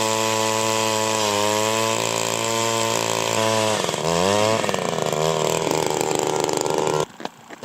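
Power ice auger drilling a hole through lake ice: a steady motor drone whose pitch dips and recovers a few times as the bit loads up in the ice, then cuts off suddenly near the end.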